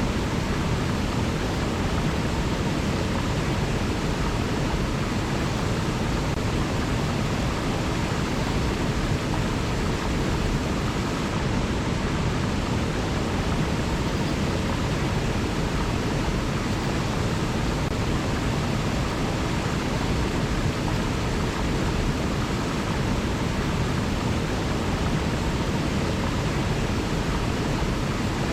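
River water flowing, a steady rushing with no change in level.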